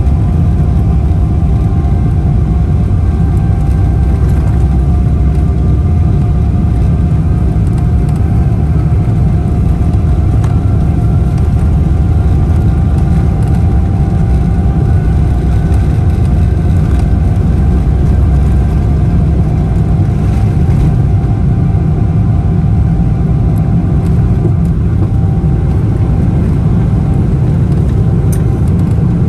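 Steady jet engine and airflow noise heard inside the cabin of a Boeing 777-300ER with GE90 engines: a deep, even rumble with a few faint steady whining tones above it.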